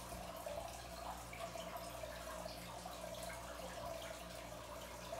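Quiet room tone: a steady low hum with faint scattered ticks.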